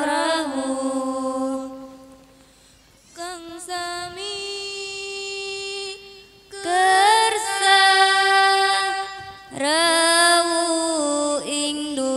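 A woman's voice sings a Javanese devotional welcome song through a microphone, without instruments, in long ornamented held notes that bend in pitch. There is a short lull about two seconds in, then new phrases start, the loudest near the middle.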